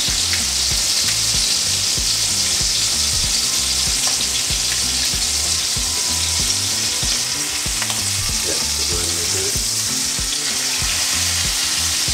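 Venison backstrap searing in hot bacon grease in a cast-iron skillet: a steady sizzle.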